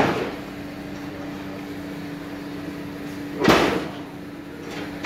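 Two short scraping sounds, about three and a half seconds apart, as test leads are handled against the copper segments of a commutator during a lamp series test. A steady low hum runs underneath.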